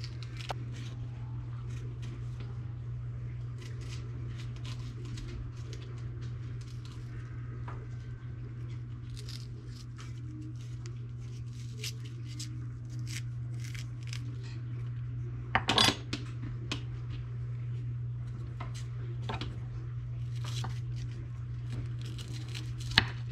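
Light clicks and taps of peppers being split and deseeded by hand on a wooden cutting board, with a louder clatter about two-thirds through and again near the end, over a steady low hum.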